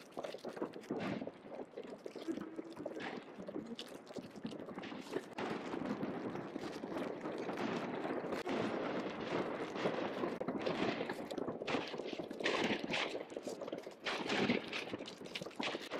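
Fireworks going off: an irregular, continuous string of pops and crackles, with louder clusters of bangs about twelve and fourteen and a half seconds in.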